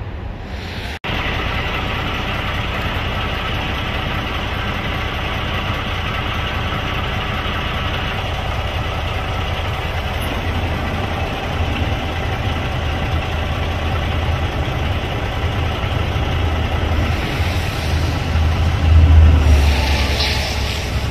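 Union Pacific freight train's diesel locomotives approaching a grade crossing: a steady low engine rumble that grows louder, loudest near the end.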